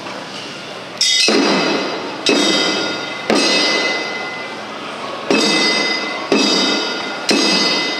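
Nagasaki Kunchi hayashi percussion: drum and metal gong struck together, each stroke ringing out. Three strokes about a second apart, a pause of about two seconds, then three more.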